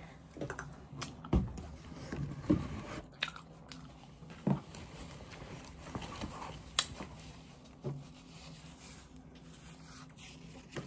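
Close-up eating sounds: biting and chewing, with about half a dozen sharp clicks and scrapes of metal spoons digging into a tub of hard frozen mango graham dessert.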